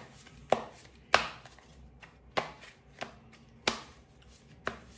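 Tarot cards being handled and laid down on a table: about seven sharp taps and slaps at uneven intervals.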